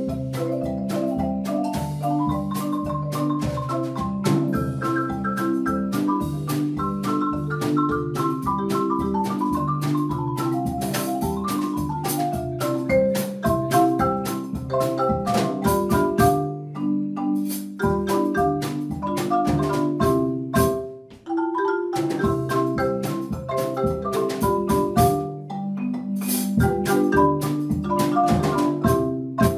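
Marimba ensemble, several players on two wooden marimbas, playing an upbeat Mexican marimba piece: fast melodic runs over a steady beat. The music breaks off briefly about two-thirds of the way through, then comes straight back in.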